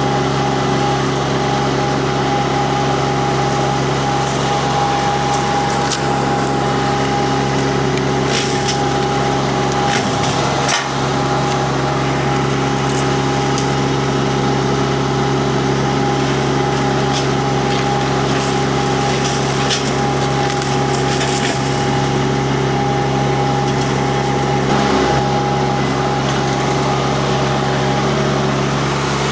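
Rippa RS06 mini skid steer's Kubota diesel and hydraulic disc mulcher running steadily. The spinning disc chips and splinters wood in scattered cracks, more of them around a third of the way in and again past the middle.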